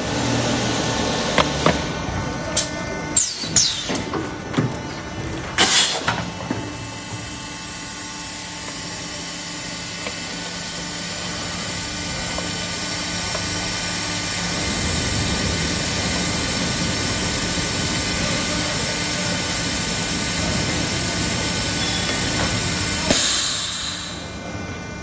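Plastic jar being handled and its moulding flash torn off, with a run of sharp knocks and crackles in the first few seconds. Under it runs the steady hum of a Tongda HT-12L/1 hydraulic extrusion blow-moulding machine. A hiss builds through the middle and ends in a sudden burst about 23 seconds in, then drops away.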